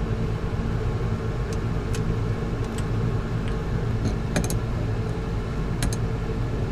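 A steady machinery hum, with a few light metal clicks of an open-end wrench working the brass hydraulic hose fittings on the autopilot pump.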